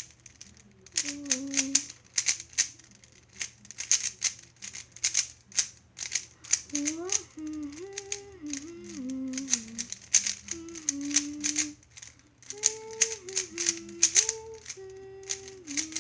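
Rapid, uneven flurries of clicks and rattles from the plastic layers of a 3x3 speedcube being turned during a timed solve. Over it a voice hums a wandering tune in short held notes, about a second in and again through the second half.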